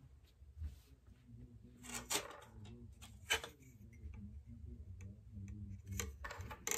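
Faint scattered clicks and taps, a handful over several seconds, over a low steady hum.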